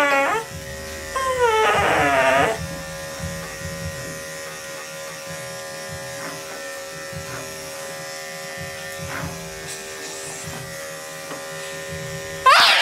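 Electric dog-grooming clippers humming steadily on a toy poodle, who whines. There are two falling whines in the first couple of seconds and a short cry right at the end.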